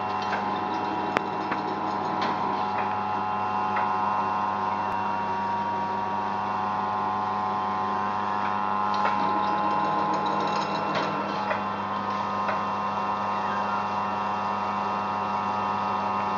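An antique George Birch metal planer running on its drive system, making a steady machine hum with several constant tones. A few sharp clicks come at irregular moments.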